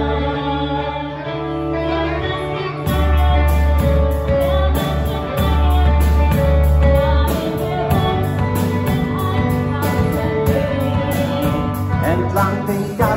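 Live rock band playing with a woman singing over bass guitar and sustained chords. About three seconds in, the drum kit comes in with a steady beat and cymbals, and the bass gets louder.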